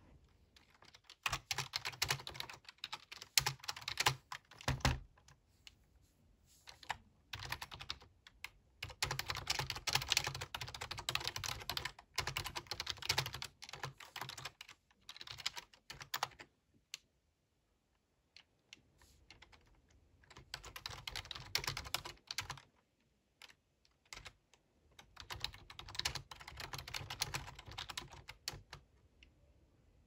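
Typing on a full-size computer keyboard: rapid key clicks in several runs of a few seconds each, broken by short pauses, with the longest pause a little past halfway.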